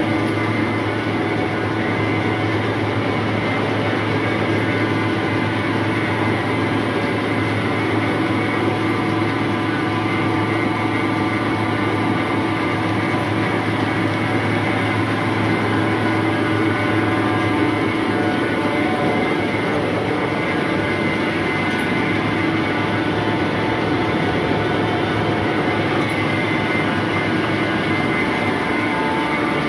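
Rice seed sorting machine running steadily: a constant mechanical hum and rattle that does not change.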